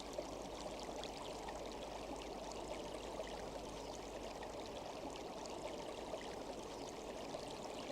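Steady running water of a stream, a continuous, even ambient sound-effect bed.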